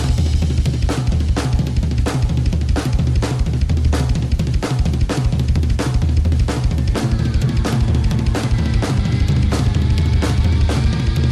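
Instrumental passage of a rock track without vocals: a drum kit beats steadily about twice a second over a heavy bass line.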